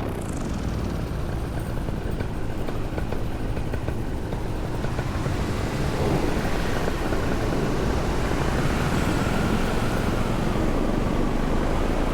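Loud, rough rush of wind in flight on a paramotor, with the Vittorazi Moster 185 two-stroke engine and propeller running underneath.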